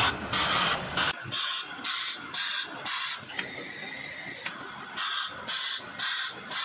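Battery-module busbar laser welding head firing a series of short welds, each a brief hiss, in two runs of four about a third of a second apart, with a quieter steady machine hum between the runs. A loud steady rushing noise fills the first second and cuts off abruptly.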